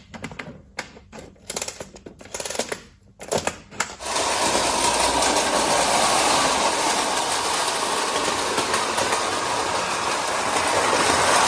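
1931 Märklin RS900 model locomotive's mechanism: a few scattered clicks and short rattles, then from about four seconds in the locomotive running with a steady, even mechanical whirr.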